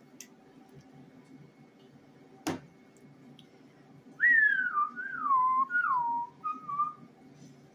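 A woman whistling a short run of notes, each sliding down in pitch, starting about four seconds in and lasting about three seconds. A single sharp click comes a little before the whistling.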